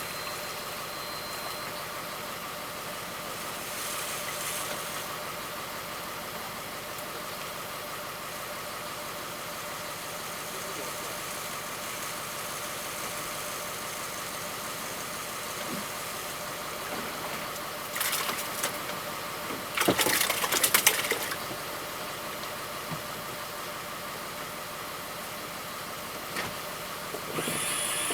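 Fishing boat's engine running steadily with an even hum, broken by two short, louder noisy bursts about two-thirds of the way through.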